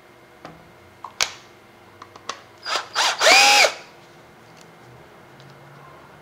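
Cordless screwdriver backing a screw out of a toner cartridge's metal end plate. A few light clicks of the bit seating come first, then the motor spins up, runs for about half a second with a high whine, and winds down a little past halfway through.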